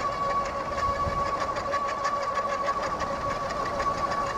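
C3STROM Astro Pro e-bike's electric motor running under pedal assist with a steady whine, over a quick, even ticking.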